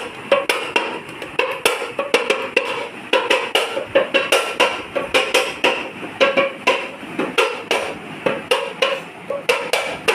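A jar with a metal lid being tapped with the hand like a drum. It makes a quick, uneven run of sharp knocks, about four or five a second, each with a short ring.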